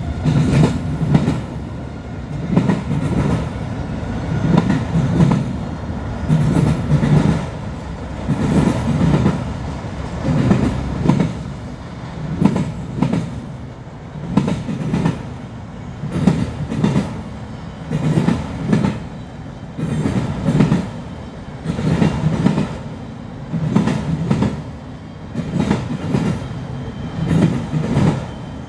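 Freight train of autorack cars rolling steadily past, its steel wheels clacking in a rhythm, with a loud cluster of clacks about every two seconds as each car's wheel sets go by over a continuous rumble.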